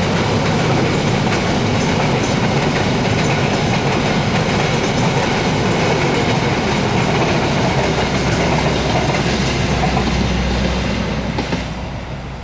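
Indonesian KAI passenger train coaches rolling past at close range, their steel wheels and bogies running loud on the rail, heard from beside the track at rail level. The noise falls away near the end as the last coach clears.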